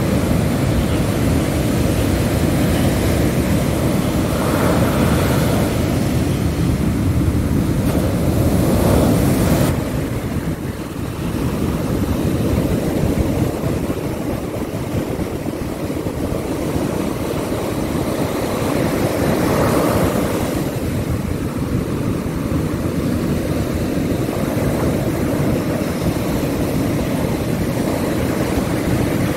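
Ocean surf breaking on a sandy beach, a continuous rushing rumble that swells to a peak, drops away about ten seconds in and builds again around twenty seconds, with wind buffeting the microphone.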